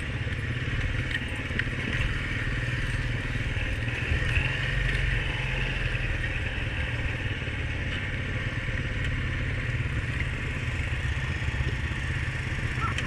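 Honda ATV engine running steadily as the quad rides along the trail.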